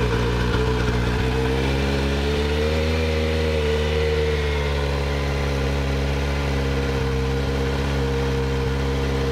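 Kawasaki Z900's inline-four idling just after a cold start, with the stock muffler removed so it runs on the open link pipe. The idle rises slightly about three seconds in and settles back to a steady idle.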